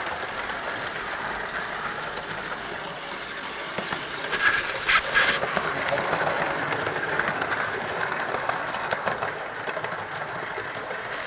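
Model trains running on the track: a steady rattle and hum of wheels and motors with clickety-clack over the rail joints. There are a few sharp clacks about halfway through, while the model InterCity 125 runs past alongside the camera train.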